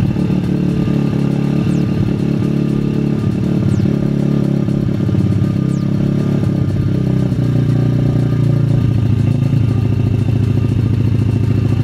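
MRF pit bike's single-cylinder four-stroke engine idling steadily on choke as it warms up from cold. About eight seconds in the fast idle drops to a lower, steady note as the choke is eased partly off.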